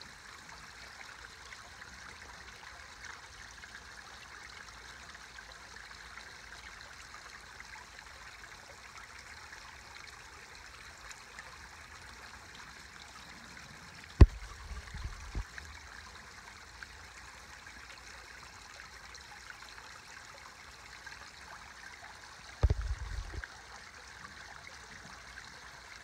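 Koi pond waterfall running, a steady trickling, splashing flow of water. Two brief low thumps stand out above it, one a little past halfway and one near the end.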